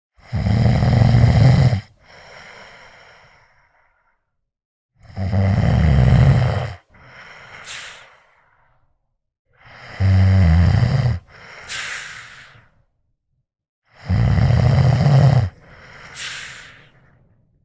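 A man snoring loudly: four big snores about four to five seconds apart, each followed by a softer breath. The last three of those breaths end in a high whistle.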